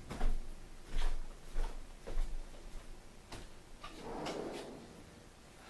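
A handful of light knocks and clicks, about six spread over the first four seconds, then a brief soft rustle.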